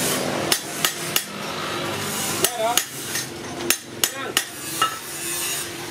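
A hand hammer striking a steel cleaver blade on an anvil, about ten sharp blows at an uneven pace.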